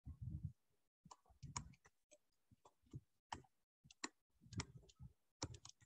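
Faint, irregular clicks and taps of a stylus on a pen tablet during handwriting, well over a dozen in a few seconds, some with a soft low knock.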